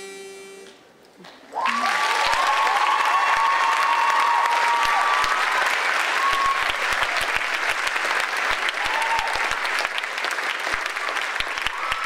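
The last of the music fades out, and after a short quiet gap an audience breaks into loud, steady applause with shouts of cheering.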